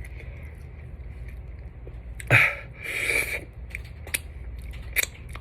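A person eating a chicken wing: scattered bite and chewing noises, with a louder breathy sound about two and a half seconds in and a couple of sharp clicks near the end.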